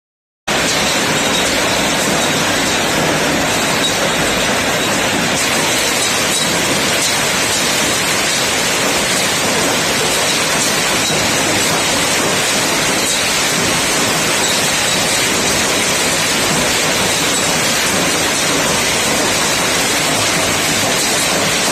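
Hail falling heavily, hailstones pelting the ground, terrace and plants in a dense, steady din. It starts about half a second in.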